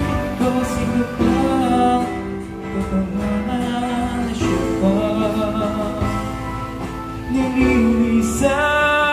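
A karaoke song with guitar accompaniment and a voice singing long held notes, played from a phone through a Titanium Audio Roadie 8P SE powered mixer and its speaker.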